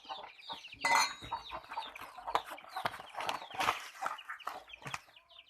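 Chickens clucking, a run of short calls with a louder squawk about a second in.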